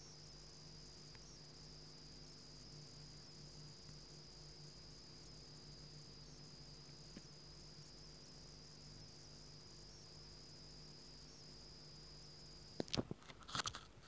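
Surface Pro 2017 power adapter giving off a faint, steady high-pitched whine from inside, over a low hum. The owner does not know whether this noise is normal. A few clicks and knocks come near the end.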